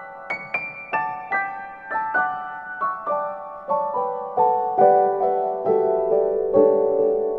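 Background piano music: a gentle melody of single struck notes, about two or three a second, mostly stepping downward in pitch.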